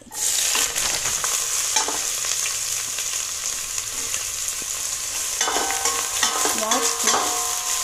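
Sliced onions dropped into hot oil in a stainless steel pot, sizzling at once as they start to fry, with a metal spoon stirring and scraping them against the pot.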